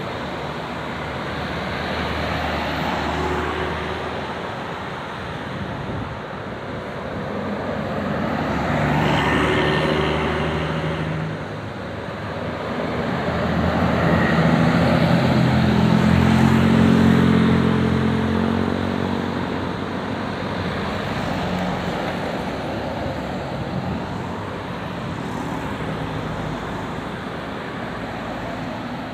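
Road traffic going past, with engines swelling twice as vehicles pass close by, about nine and seventeen seconds in; the second pass is the louder.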